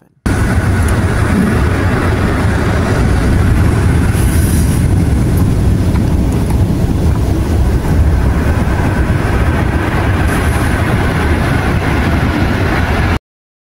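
Heavy surf churning and breaking against a sea wall: a steady, deep rush of waves on a rough, stormy sea. It cuts off abruptly near the end.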